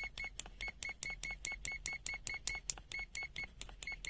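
ZOYI ZT-M2H multimeter's buzzer beeping in short, high-pitched pulses, about six a second with a few brief gaps.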